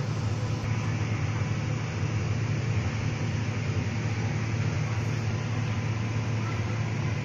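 Steady mechanical hum with an even rushing noise, unchanging in pitch and level.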